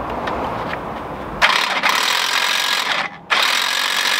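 Corded electric impact wrench hammering on an 18 mm lower strut bolt in two loud bursts. The first starts about a second and a half in, and a short break comes before the second. The bolt is too tight to break loose.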